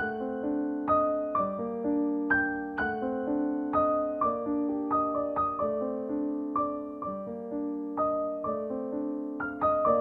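Background music: a slow, gentle solo piano piece, notes struck about twice a second and left to ring and fade.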